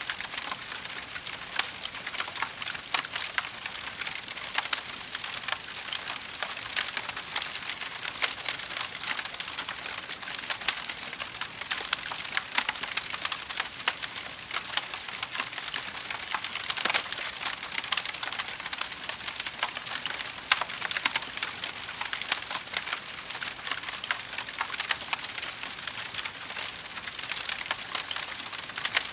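Fire crackling: a steady hiss dotted with many small sharp pops and snaps.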